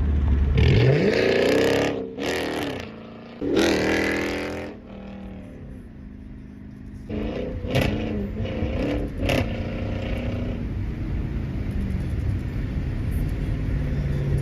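Straight-piped Chrysler 300 V8 revved with a loud exhaust: a rising rev about a second in, another near four seconds, then a run of short throttle blips between about seven and ten seconds, dropping back to a low idle rumble in between.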